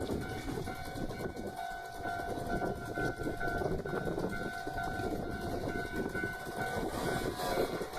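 Hankyu commuter train running past on the rails with a dense rumble, while a level-crossing warning bell rings on a steady high tone throughout.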